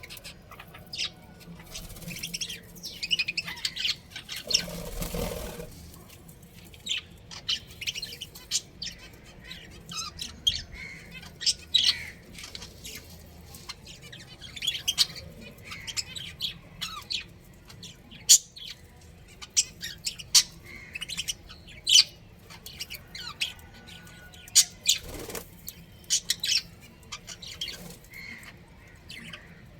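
Budgerigars chirping and chattering in quick, short, high-pitched calls, with a brief rush of noise about five seconds in.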